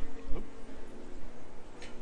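Wind buffeting the microphone and rattling from a moving bicycle. A short rising squeak comes just after the start, and a sharp click near the end.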